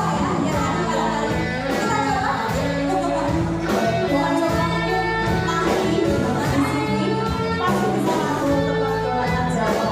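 Live modern gamelan band playing: female singing over electric guitars, a drum kit and gamelan instruments, with a steady beat.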